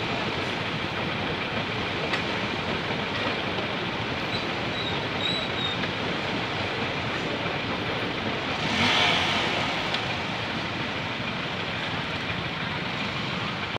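Indian Railways passenger train's sleeper-class coaches rolling past on the track: a steady rush and rattle of wheels on rail, with a brief louder surge about nine seconds in.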